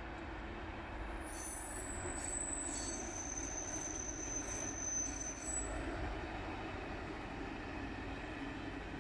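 SNCF track-tamping machine convoy rolling past slowly with a steady low rumble of engine and wheels. From about a second in to about six seconds in, its wheels give a thin, high-pitched squeal of several held tones.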